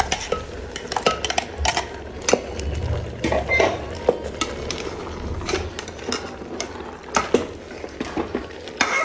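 Steel spoon scraping ground coconut paste out of a mixer-grinder jar into a pot, with irregular clinks and knocks of metal on metal.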